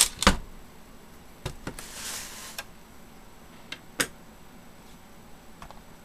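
Sharp clicks and knocks of small hard objects being handled and set down on a plastic surface, the loudest two at the very start, with a brief rustle about two seconds in and a few lighter clicks after.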